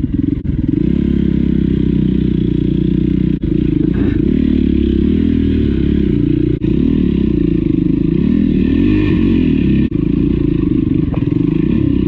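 Dirt bike engine revving up and down under load, its pitch rising and falling repeatedly while climbing through a rough trail obstacle, with momentary dips in level about every three seconds.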